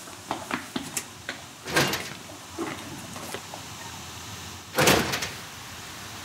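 Footsteps walking away, then a door opening about two seconds in and shutting near five seconds; the shutting is the loudest sound.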